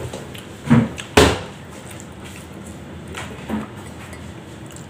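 Kitchen clatter: two sharp knocks in quick succession about a second in, then two fainter knocks a couple of seconds later, as things are handled around the counter and stove.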